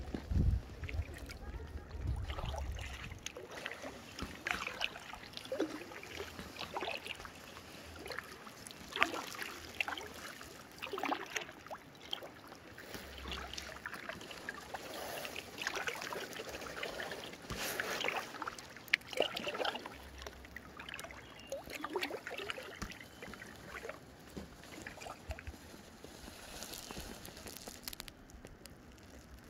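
Kayak paddle strokes on calm lake water: the blades dip in and water trickles and drips off them, making an irregular series of small splashes every second or two.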